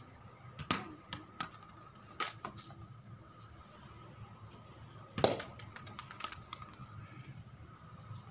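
Sharp knocks of a cricket ball bouncing on the artificial turf and being struck by the bat: several about a second and about two and a half seconds in, and the loudest crack about five seconds in.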